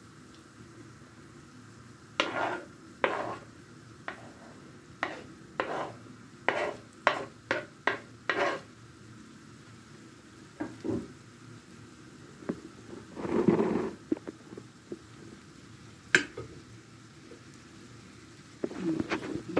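Metal spoon scraping chopped onion off a wooden chopping board into a frying pan: a quick run of about ten knocks and scrapes, then a longer scrape and a single sharp knock as the onion is stirred in with the frying carrots. A faint sizzle of frying runs underneath.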